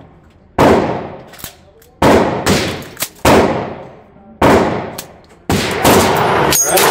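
Single shots from a suppressed 5.56 Sig MCX rifle with an OSS suppressor, fired about one to two seconds apart, each trailing off in echo. About two-thirds of the way in, a quicker string of shots runs together.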